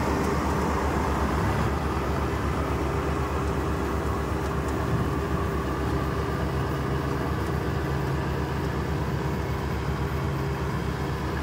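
Rice combine harvester running steadily while harvesting: an even engine drone with a constant hum from the threshing machinery.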